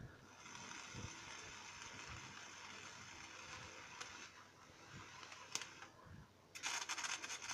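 Faint stick-welding arc from a 3 mm electrode fed directly by 24-volt solar panels, hissing and crackling steadily, dropping out for about half a second near the end and restriking with a louder crackle. The arc is weak because the panels' voltage sags heavily under the welding load.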